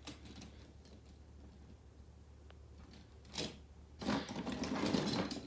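A short knock, then about a second of clattering and scraping as die-cast toy monster trucks are rummaged in a plastic storage drawer.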